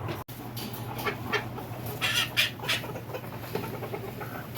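Young Silkie chickens clucking and peeping in short calls, a few loud ones about two seconds in, over a steady low hum.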